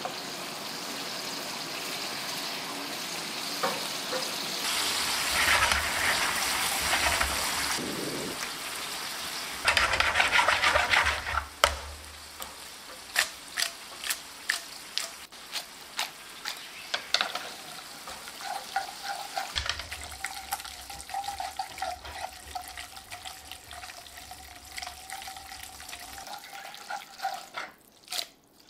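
Pasta and its cooking water sizzling and bubbling in hot garlic olive oil in a frying pan, with two louder surges of sizzling in the first half. The pasta is then tossed and mixed quickly, with many small clicks and taps over a quieter sizzle, as the oil and starchy water emulsify into a sauce.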